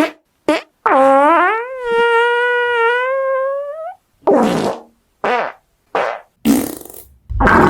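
Fart sounds: two short blips, then one long pitched fart of about three seconds that holds its note and rises at the end, followed by several short, rougher farts.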